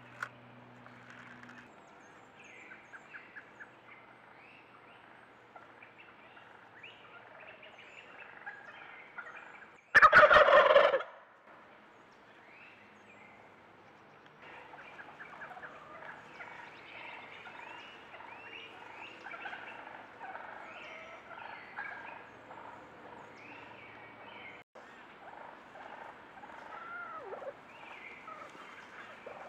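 A male wild turkey gobbles once, loud and about a second long, about ten seconds in.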